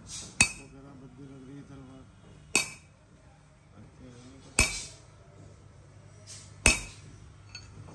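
Hammer striking steel on an anvil while forging a sword blade: four sharp ringing blows about two seconds apart.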